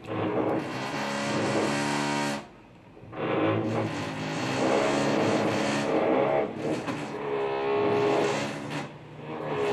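Music with guitar playing, its sustained notes dropping out for about a second near the three-second mark.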